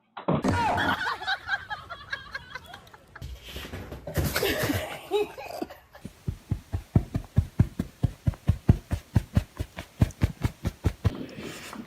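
People laughing across several short clips, ending in a long, even run of laugh pulses at about five a second.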